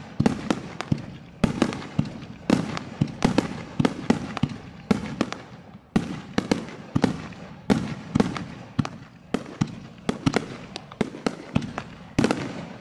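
Aerial firework shells bursting close overhead in a rapid barrage. Sharp bangs come irregularly, often two or three a second, and each dies away in an echo.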